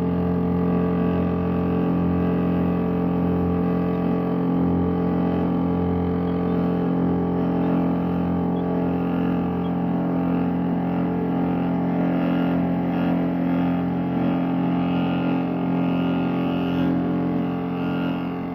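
Wadkin pillar drill running with a cutter routing a trench in a wooden stair stringer: the motor's steady hum, with a rougher cutting noise that swells and fades in the second half. It drops a little in level near the end.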